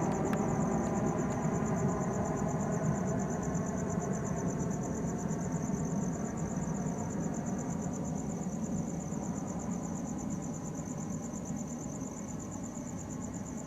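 Low rumble of a DHL cargo jet fading steadily as it flies away. Crickets chirp steadily throughout in a high, fast pulse.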